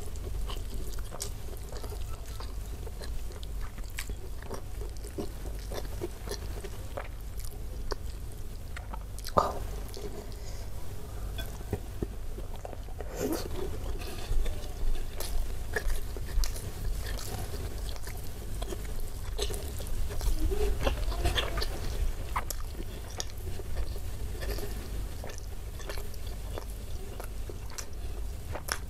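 Close-miked chewing and wet mouth sounds of someone eating beef rendang with rice, with irregular smacks and small clicks; a few louder smacks come around the middle.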